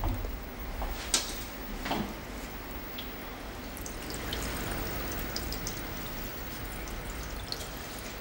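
Water running and dripping in a stainless-steel conservation tray as waterlogged cloth is washed, with a sharp click about a second in and a duller knock near two seconds.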